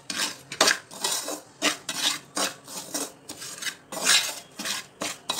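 Perforated metal spoon scraping against a metal pan as it stirs dry roasted semolina and roasted gram flour together, in quick repeated strokes a little over two a second.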